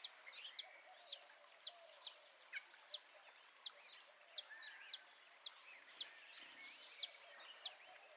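A bird's short, very high, sharp call notes repeated roughly twice a second, with fainter chirps of other birds behind.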